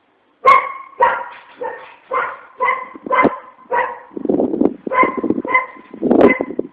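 Dog barking repeatedly, about two barks a second, starting half a second in; most barks are sharp and clear, a few lower and rougher.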